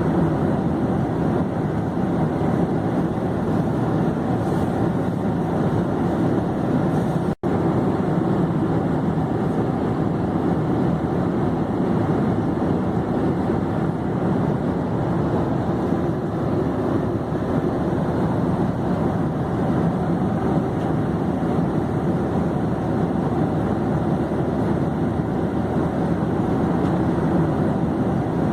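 Steady noise of an airplane in flight: an even, unbroken rush of engine and air noise, with a split-second dropout about seven seconds in.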